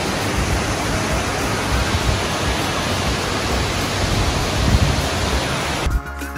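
Loud, steady rush of Manthoka Waterfall's falling water and the boulder-strewn stream at its foot. It cuts off abruptly near the end, where music begins.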